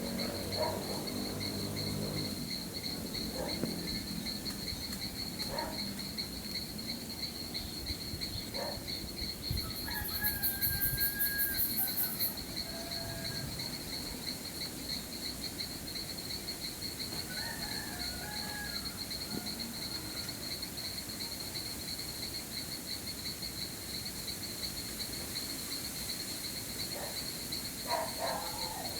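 Crickets trilling steadily in a high, even chorus. A second, higher-pitched insect buzzes for about two seconds around ten seconds in. Short bird chirps come now and then.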